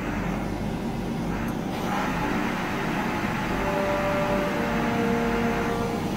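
Handheld gas torch flame hissing steadily as it heats the end of a bronze arm ring, stopping near the end as the torch is taken away; sustained tones of background music sound under it.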